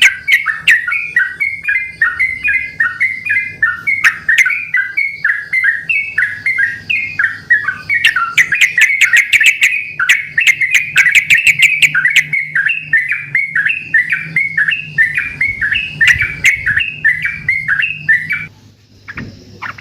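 Yellow-vented bulbuls (trucukan) singing, with more than one bird answering the others in a continuous stream of quick bubbly chirps that breaks off briefly near the end.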